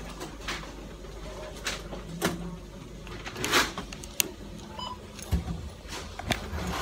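Supermarket background noise: a steady low hum with scattered clicks, knocks and clatter, and the phone rubbing and knocking against the trolley handle as it is held.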